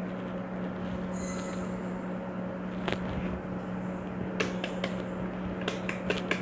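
A packet of dry yeast handled and emptied into a stainless steel stand-mixer bowl: light rustling, then a run of sharp ticks from about four and a half seconds in as the granules go into the bowl. A steady low hum sits underneath.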